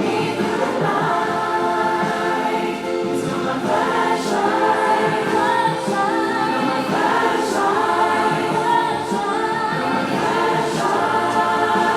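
A vocal ensemble singing in harmony, many voices holding and moving through chords, with no clear words.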